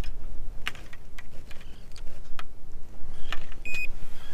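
Irregular light clicks and taps of fishing tackle being handled, with one short high beep near the end.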